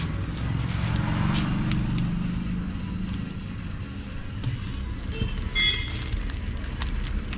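Steady low rumble of street traffic with faint voices, and a short high-pitched tone about five and a half seconds in.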